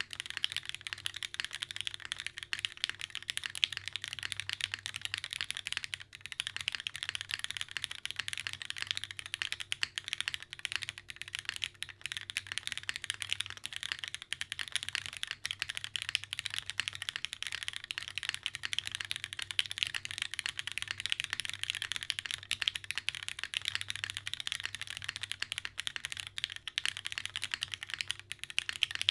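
Fast, continuous typing on a mechanical keyboard with lubed, diamond-polished linear Cherry MX Black switches on an O-ring-mounted aluminium plate, capped with GMK keycaps: a dense stream of key clacks.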